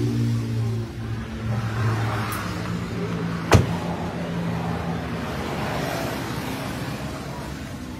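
A vehicle engine running, its pitch shifting a few times, with one sharp click about three and a half seconds in.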